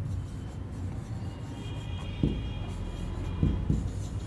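Marker pen writing on a whiteboard: soft strokes with a few light taps in the second half, and a thin high squeak around the middle, over a steady low room hum.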